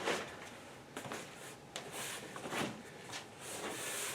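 Parts packaging being handled: scattered light knocks and clicks with bursts of crinkly rustling, loudest near the end.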